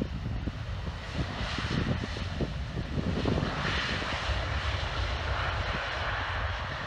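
Jet engines of a UPS Boeing 767-300ER freighter during its landing rollout, a steady roar that swells from about three and a half seconds in. Wind buffets the microphone underneath.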